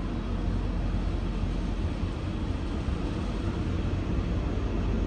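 Automatic car wash water jets spraying the car, a steady rushing hiss heard from inside the cabin over a low rumble.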